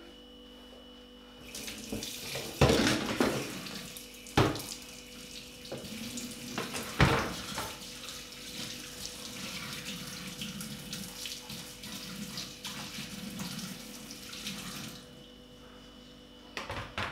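Kitchen tap running into a sink for about thirteen seconds, with a few sharp knocks along the way, then turned off.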